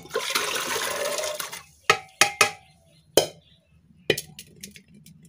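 Soaked peas, potato chunks and their water poured from a metal bowl into a pressure cooker: a splashing pour for about a second and a half, then several sharp metal knocks and clinks as the bowl taps against the cooker.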